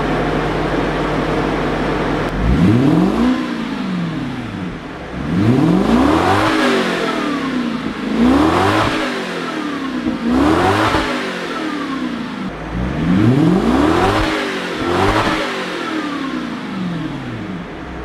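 1992 Lexus SC400's 4.0-litre V8 idling, then revved about six times; each time the pitch rises and falls back to idle.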